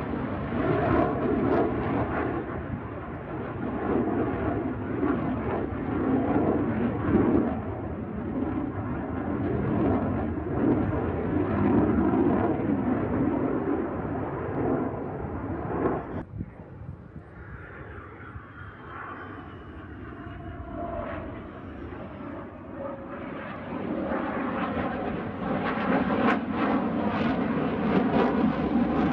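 Military jet engine noise from a fighter flying a display overhead, a loud steady rushing. It drops off suddenly about halfway, stays quieter for several seconds, then builds up again near the end as the jet comes back around.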